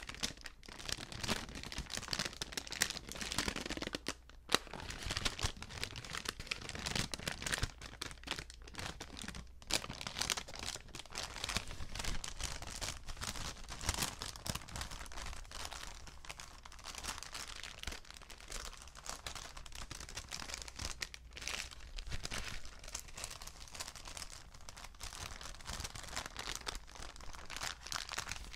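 Paper bags being crinkled and crumpled by hand close to the microphone: continuous dense crackling with many small sharp crackles, pausing briefly twice.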